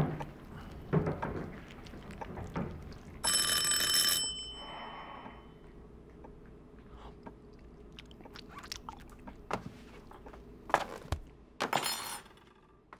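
Spoon clicking against a small dish during eating, then a doorbell rings for about a second, a few seconds in, and its tone fades away. A few knocks and a second short ring come near the end.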